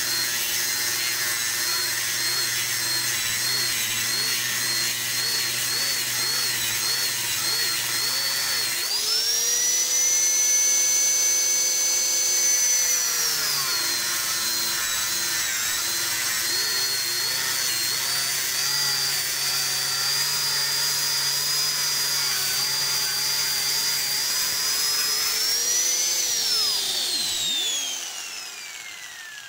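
Handheld electric angle grinder cutting through 3 mm steel plate with a cutting disc, a steady high motor whine with grinding noise. The pitch rises for a few seconds about nine seconds in, and near the end the grinder is switched off and the whine falls away as the disc spins down.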